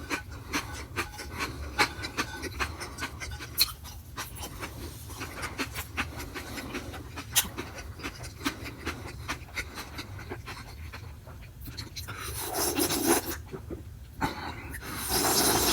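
Close-miked eating: wet mouth clicks and smacks of chewing, with two louder rushes of breath, about twelve seconds in and near the end.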